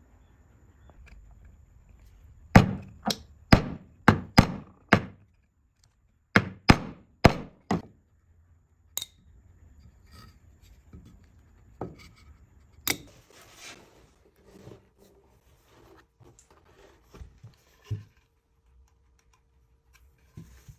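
Hammering on wood: a run of six sharp blows, a short pause, then five more at about two a second, followed by a few lighter scattered knocks as parts are fitted.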